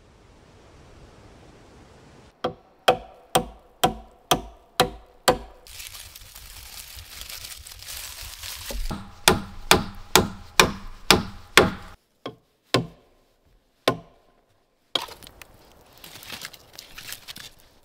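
Chopping strokes on wood with a sharp ring, about two a second, in two runs of six or seven, then two single strokes. Between the runs comes a stretch of aluminium foil crinkling under hands, and near the end a wood fire crackling.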